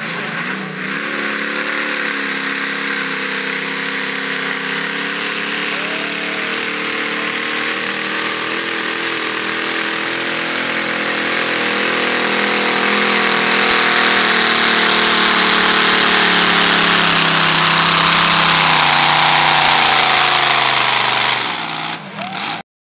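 Modified pulling tractor's supercharged engine running at full throttle under load as it drags the sled, getting louder about halfway through. Near the end its pitch falls as the tractor slows to a stop, and then the sound cuts off abruptly.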